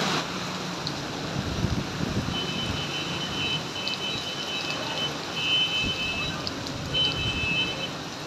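Heavy rain pouring onto a wet road, with wind gusting on the microphone. A thin, high steady tone sounds several times in the middle.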